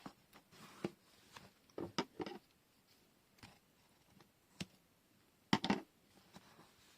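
Washi tape rolls and their packaging being handled on a tabletop: scattered small taps and clicks with short rustles, the loudest cluster of taps about five and a half seconds in.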